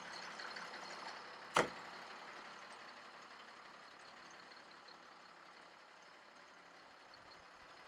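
A rushing hiss that dies away, then a single sharp knock about a second and a half in, followed by faint steady background noise.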